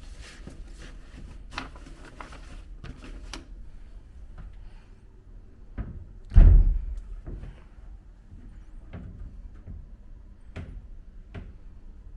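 Rustling and sharp clicks of things being handled in a small room, then one heavy thump about six seconds in, followed by a few light knocks.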